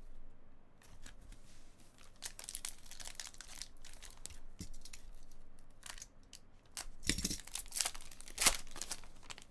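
Trading card pack wrappers being torn open and crinkling, in a run of short rips. The loudest rip comes about eight and a half seconds in.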